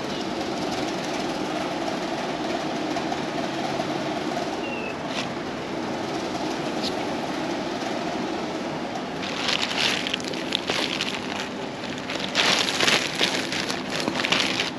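Clothing and a black plastic trash bag being handled, with loud crinkly plastic rustling in two spells, about two-thirds of the way in and again near the end, over steady background noise.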